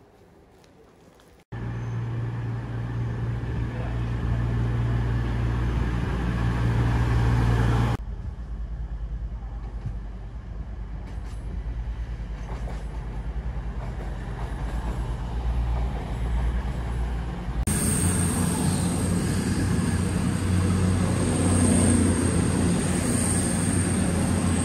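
Railway trains running with a steady low engine hum. The sound cuts in suddenly about a second and a half in, drops back at about eight seconds, and near the end a thin high whine joins it.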